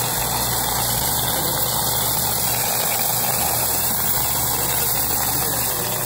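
Self-service coin-counting machine running steadily, its motor humming as quarters pushed into the hopper rattle through the sorter.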